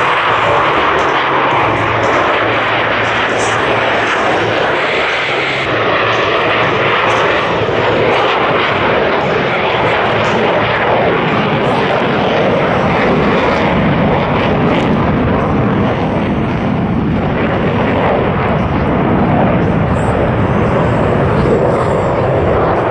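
Loud, steady jet noise from Blue Angels Boeing F/A-18 Hornets, twin-engine jet fighters, flying overhead.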